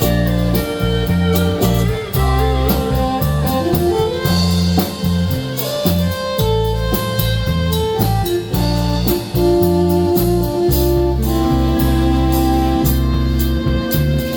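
Live country band playing an instrumental break: a steady drum beat and bass line under a lead melody of long held and sliding notes.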